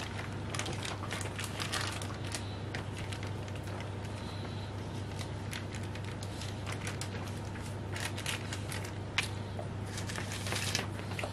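Parchment paper rustling and crinkling as it is pulled and tucked between baguette dough loaves on a metal baking tray, in scattered soft rustles that grow busier near the end. A steady low hum runs underneath.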